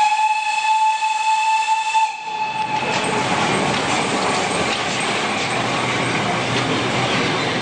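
Steam whistle of the class 75 tank locomotive 75 1118, one steady blast of about two seconds that swells in at the start. It is followed by a steady hiss of steam from the locomotive.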